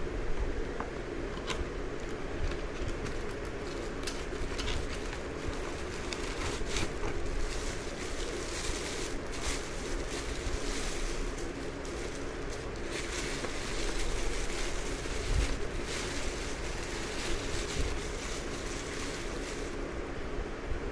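Plastic bag and foam packing wrap rustling and crinkling as they are handled and pulled off a plate, with irregular short rustles and scrapes, over a steady background hum.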